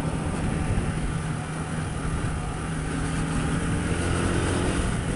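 Motorcycle engine running steadily while riding, with wind noise rushing over the camera.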